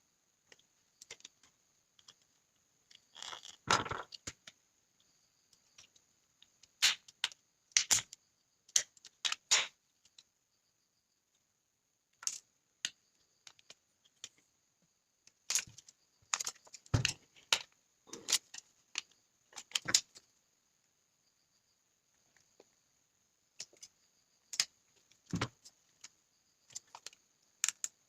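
Scattered clicks, taps and knocks of a plastic Huawei 4G LTE modem casing being handled and pried apart by hand, with a few louder knocks among them. A faint steady high whine runs underneath.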